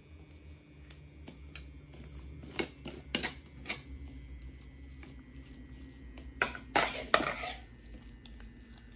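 Metal spoon scraping and knocking against a ceramic plate as a soft filling is spread over a nori sheet. Scattered clicks, with a cluster of louder knocks about two and a half to four seconds in and the loudest group around seven seconds in.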